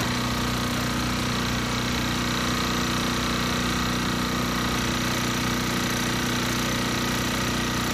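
Small portable engine-driven pump running at a steady speed, a constant engine note with a rapid, even knock.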